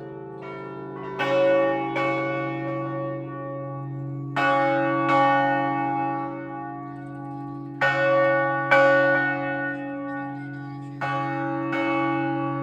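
Turin Cathedral's church bells ringing for noon. Several bells strike at uneven intervals, about six strikes, and each rings on long, overlapping the others over a steady low hum.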